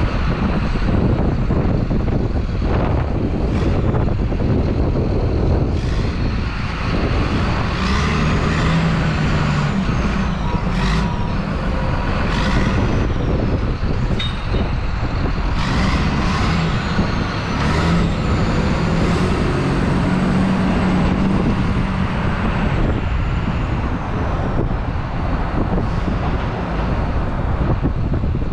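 Diesel truck engine running steadily close by, with a wheel loader working nearby. Sharp knocks come now and then, and a faint high whine rises and falls through the middle.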